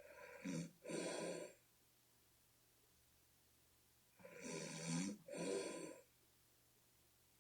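A person snoring, which the snorer likens to a bullfrog: two snores about four seconds apart, each in two quick parts.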